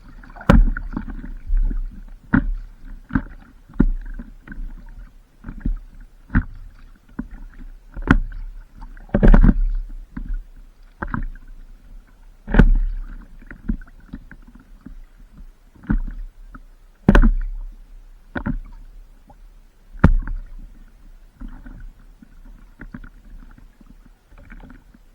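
Water splashing and slapping against a stand-up paddleboard in irregular sharp knocks, about one a second, over a low rumble of water and wind.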